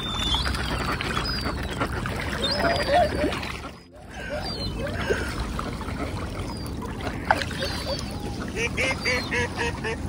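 A flock of ducks and whooper swans calling on the water: quacks and honking calls over a steady low background noise. The sound drops out briefly about four seconds in, and a quick run of repeated calls comes near the end.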